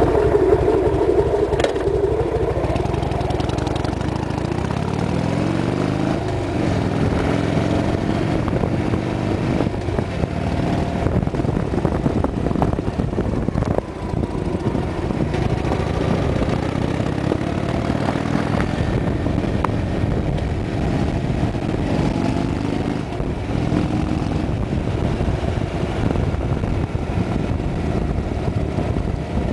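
Harley-Davidson Sportster's air-cooled V-twin engine running while under way, its pitch rising and falling several times as the rider speeds up and eases off.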